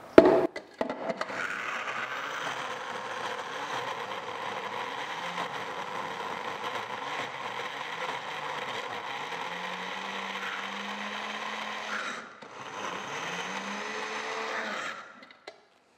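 Moulinex electric mini chopper running, grinding desiccated coconut with sugar. A sharp knock near the start, then the motor runs steadily for about eleven seconds, stops briefly, runs again for a few more seconds, and cuts off.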